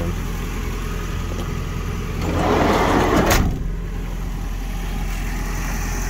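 Sliding side door of a 1991 Toyota Liteace van rolling along its track and shutting with a sharp knock about three seconds in, over a steady low hum.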